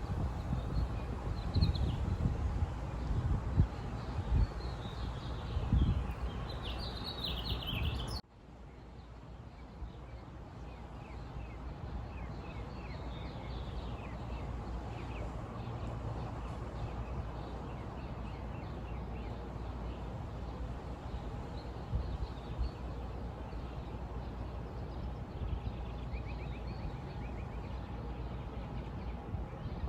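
Outdoor ambience of small birds chirping over a steady background hiss, with wind buffeting the microphone in the first few seconds. About eight seconds in, the sound cuts abruptly to a quieter background. Fainter bird calls carry on there, with a quick trill near the end.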